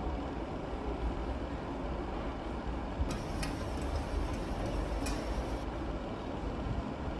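Tap water splashing into a stainless steel bowl in a steel sink, with a few clinks of the bowl about three and five seconds in, over a steady low rumble.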